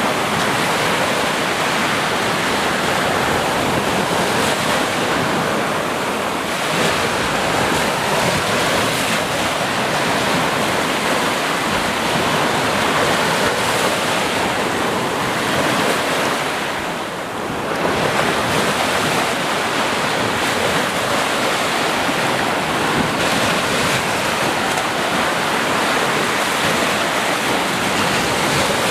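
Sea surf: a dense, steady wash of waves with a short lull about seventeen seconds in.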